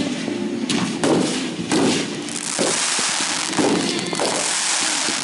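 Fireworks going off: repeated booms about once a second, joined from about two seconds in by a long, dense crackling hiss.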